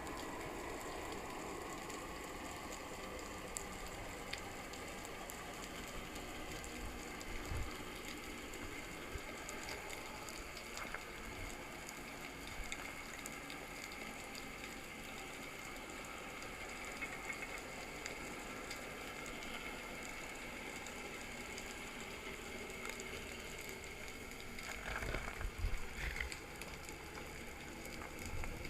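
Underwater ambience heard through a camera's waterproof housing: a steady hiss full of fine crackling and clicks. There are a few low knocks, louder around 25 to 26 seconds in.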